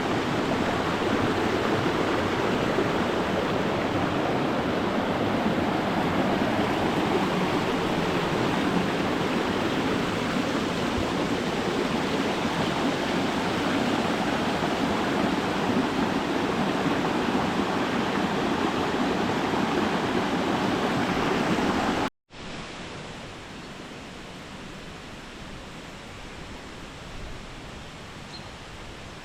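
Loud, steady rush of falling water. About three-quarters of the way through it cuts off suddenly, and after a moment's gap a much quieter, steady hiss takes over.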